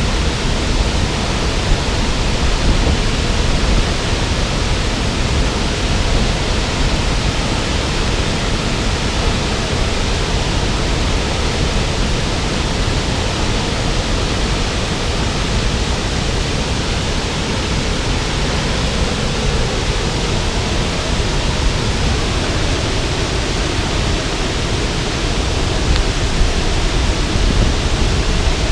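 Falling water of a 15-metre waterfall: a loud, steady rush that does not change.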